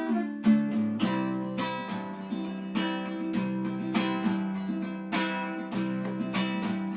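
Acoustic guitar (violão) playing a strummed chord introduction, with steady rhythmic strokes and ringing chords.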